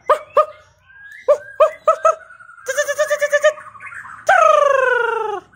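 White-rumped shama (murai batu) singing: a run of short whistled notes, then a rapid trill, and near the end a long, loud note that slides down in pitch.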